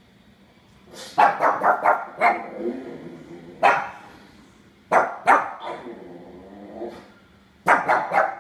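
Pug puppy barking in short bursts. There is a quick run of about five barks a second in, a single bark, a pair of barks around the middle, and another quick run near the end.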